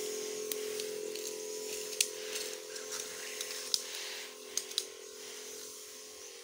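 Electric knapsack sprayer's pump humming steadily while the wand hisses out a spray of herbicide, with scattered sharp clicks and rustles of stalks and weeds. The hum drops a little in level about two-thirds of the way through.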